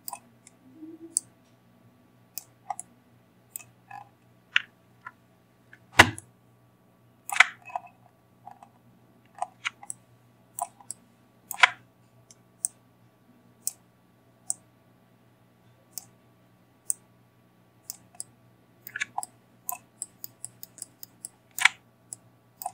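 Computer mouse clicks at an irregular pace, roughly one a second, with one louder knock about six seconds in, over a low steady hum.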